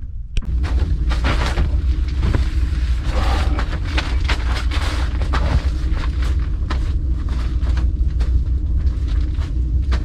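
A person crawling across plastic sheeting in a crawl space: a dense run of scuffing, crinkling and dragging noises, over a heavy low rumble of the camera being jostled as it is carried along.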